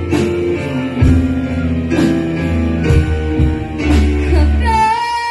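Instrumental backing of a pop ballad between sung lines, with bass and chords over a steady beat of about one hit a second. A long held note with a slight waver comes in near the end.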